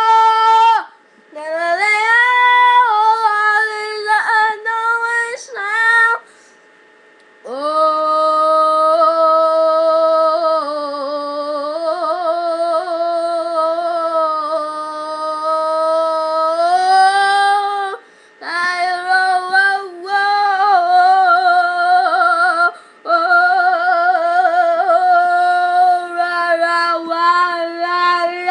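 A high voice singing long, wavering held notes with slides in pitch, stopping briefly a few times.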